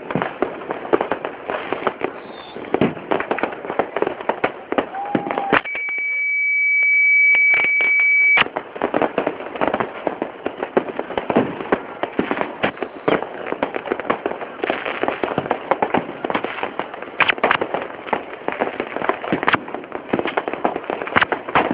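A fireworks display with a dense, irregular barrage of bangs and crackles, and voices among them. About a third of the way in, the bangs drop out for nearly three seconds under a steady high-pitched beep that grows louder and cuts off suddenly.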